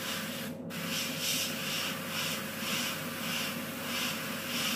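Gravity-feed dual-action airbrush spraying white paint onto nail tips through a stencil: a hiss that cuts out briefly about half a second in, then comes in short pulses about twice a second as the trigger is worked.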